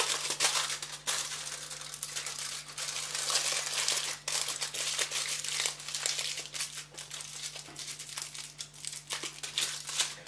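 Aluminium foil crinkling and crackling continuously as it is folded and pressed by hand around a frozen stock cube.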